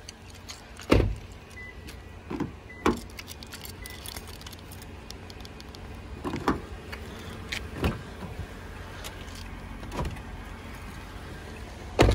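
Scattered clicks and thumps from handling a Toyota Camry's doors and rear door handle with a key fob in hand, the loudest a sharp thump about a second in and another at the very end, over a steady low hum.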